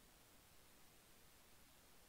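Near silence: only a faint, even hiss from a failed audio track.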